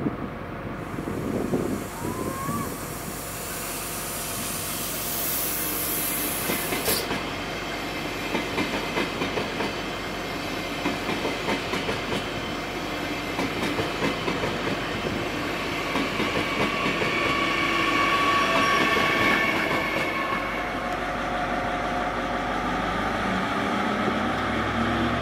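A DB double-deck Intercity (IC2) train passing close, its wheels clattering in a rhythm over rail joints, with a high whine of wheels in the later part. Near the end a diesel engine rises in pitch as it revs up.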